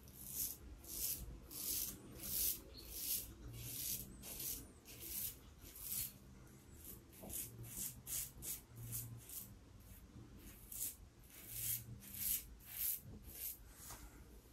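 Double-edge safety razor, a Yaqi SRC037 cap on a Fatip closed comb with an Astra Stainless blade, cutting two-day stubble through lather: short scraping strokes, about two a second, each with a brief pause between.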